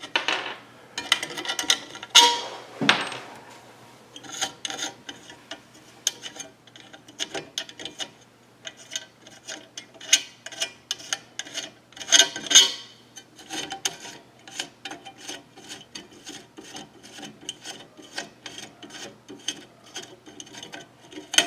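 Screws being backed out of a 3D printer's heated bed with a hand tool: a long run of light metal ticks and scraping, with louder clinks around two and twelve seconds in, over a faint steady hum.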